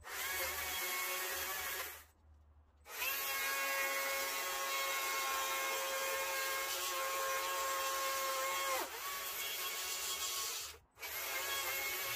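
Electric power carving tool cutting into cedar in four runs, a steady high motor whine over a rushing cutting noise. The longest run lasts about six seconds, and its whine drops in pitch as the tool winds down.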